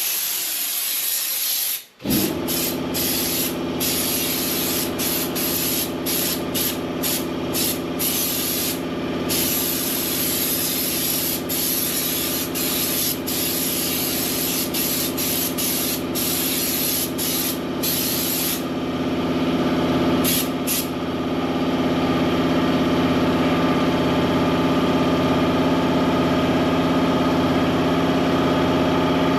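Air spray gun hissing in repeated short bursts as Raptor protective coating is sprayed, over the steady hum of an air compressor that starts up about two seconds in. The spraying stops about two-thirds of the way through, apart from two short bursts, while the compressor keeps running.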